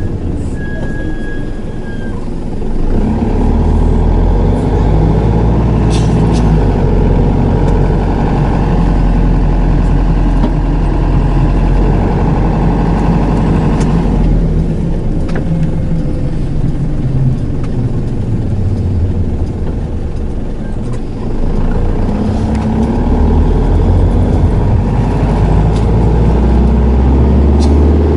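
Hino Liesse II minibus under way, heard from the passenger cabin: its four-cylinder diesel runs through a five-speed automatic over steady road noise. The engine note climbs as the bus accelerates about three seconds in and again after a lull near the end, shifting up through the gears.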